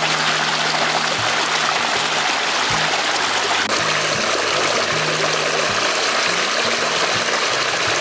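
Stream water rushing steadily over rocks and around hands held in the flow, with background music underneath.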